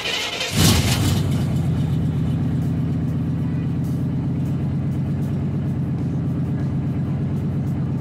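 A 1989 Chevrolet K1500 pickup's engine starts: the starter is cranking at the very start, the engine catches about half a second in, then it idles steadily.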